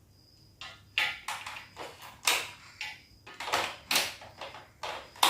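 A quick, irregular run of a dozen or so sharp clicks and knocks, starting about half a second in, as the steam vaporizer is plugged in and its controls are switched and set.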